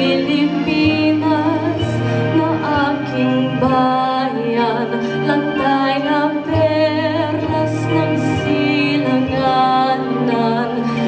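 A woman singing into a handheld microphone, amplified through a PA speaker, with vibrato and long held notes over a recorded backing track with steady bass notes.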